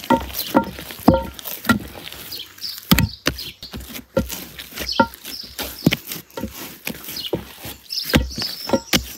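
Hands working soft, risen bread dough in a glazed clay bowl: irregular wet slaps and squelches as the dough is lifted, pressed and dropped back, roughly one or two a second.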